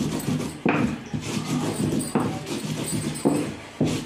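Repeated grinding strokes of a hand-held grinder rubbed on a board, crushing whole red chillies and garlic into chutney, a scrape or knock about every second.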